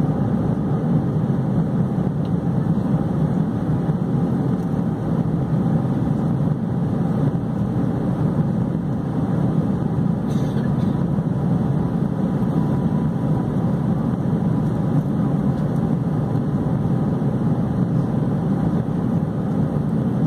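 Steady low roar inside the passenger cabin of an Airbus A320 during the climb after takeoff: engine noise and airflow over the fuselage, even in level throughout.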